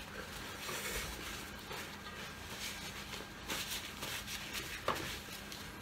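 Paper napkin rustling as hands are wiped, with a short tap on the table about five seconds in.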